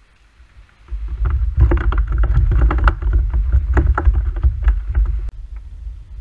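Irregular knocks and clatter over a loud low rumble as the angler shifts about in a plastic sit-on-top fishing kayak right by the camera, starting about a second in and easing off near the end.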